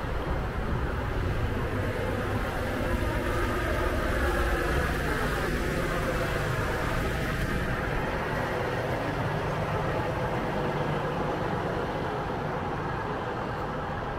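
City street traffic: motor vehicles running and passing, swelling to a peak about four seconds in and slowly easing off.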